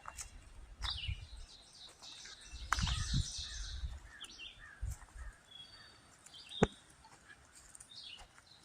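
Several songbirds chirping and trilling in short scattered calls, with intermittent low rumbling. A single sharp click about two-thirds of the way through is the loudest sound.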